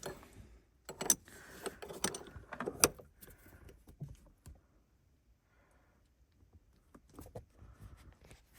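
Irregular metallic clicks and clinks of a small 14 mm wrench being fitted and worked at the shift lever, in two spells with a quiet pause between.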